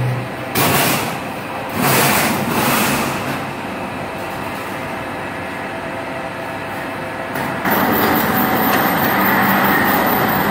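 A pizza cone making machine running with a steady mechanical drone. Two short rushes of noise come in the first few seconds. At about seven and a half seconds in, it steps up to a louder, steady running sound as the upper mould press comes down.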